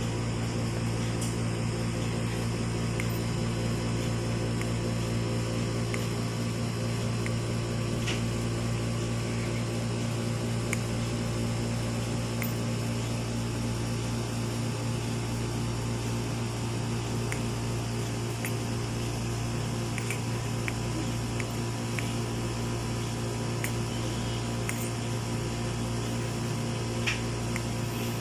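A steady low machine hum, as from a running fan, holding an even level throughout, with a few faint ticks.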